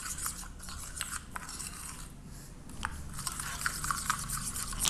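A steel spoon stirring a thick homemade paint paste in a small steel cup, with irregular clicks and scrapes of the spoon against the cup's sides and bottom.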